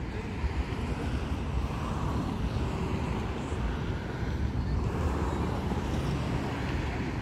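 Steady low rumble of wind buffeting the microphone over an outdoor field, with faint distant voices of players.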